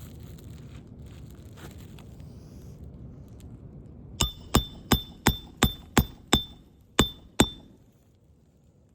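Hammer striking a steel roof snake to drive a roofing nail under an overlying shingle: about nine sharp metallic blows in quick succession, each with a brief ring, starting a few seconds in with a short pause before the last two.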